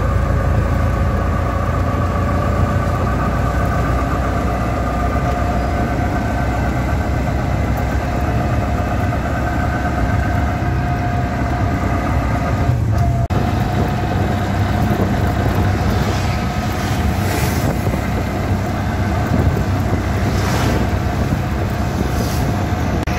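Engine of a three-wheeled auto-rickshaw running steadily while under way, heard from inside its open cabin, with road and wind noise mixed in.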